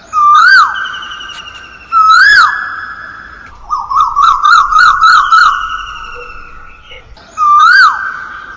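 A bird's loud, pure whistled calls. Three calls each swoop sharply up and then down and ring on as they fade, and in the middle there is a fast warbling trill of rapid up-and-down notes.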